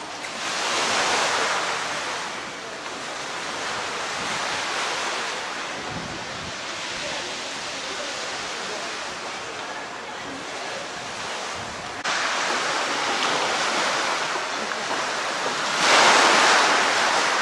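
Small sea waves washing in over a shingle beach and around the legs of a pier, swelling louder about a second in and again near the end.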